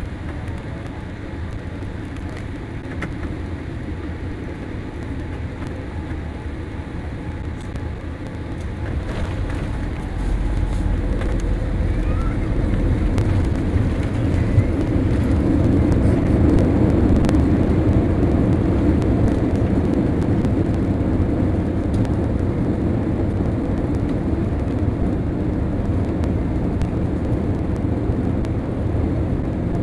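Boeing 787 cabin noise during landing: steady engine and airflow noise on short final, then about a third of the way in the wheels touch down and a deep rumble sets in. The noise rises to its loudest a few seconds later as the jet rolls out and slows with its spoilers up, then eases a little.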